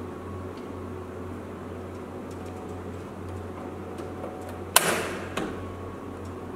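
An LED display module being set back into its screen cabinet: a sharp click about two-thirds of the way through as it seats, then a smaller knock half a second later, over a steady low hum.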